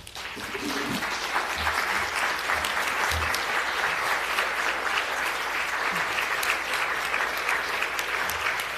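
An audience applauding, many people clapping at once in a steady, even wash of claps that starts suddenly and holds through.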